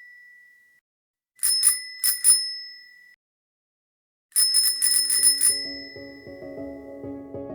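Bicycle bell rung in short bursts: the tail of one ring fading out, a few quick rings about a second and a half in, then a rapid trill of rings about four and a half seconds in. Music comes in under the last trill.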